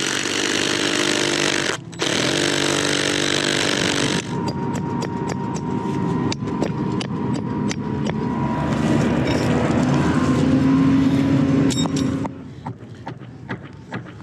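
A small engine-driven tool running, with a loud rushing noise for about the first four seconds, briefly broken once. Then a steady engine hum with many sharp clicks, until the level drops near the end.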